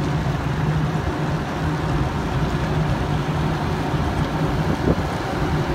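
Steady outdoor rumble of passing road traffic mixed with wind buffeting the microphone.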